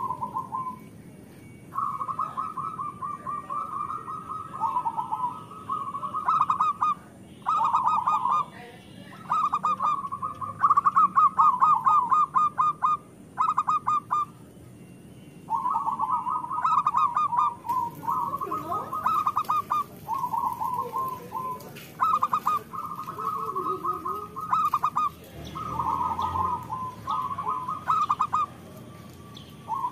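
Zebra dove (perkutut) singing its staccato cooing song: phrase after phrase of quick, rattling coo notes, with short pauses between them.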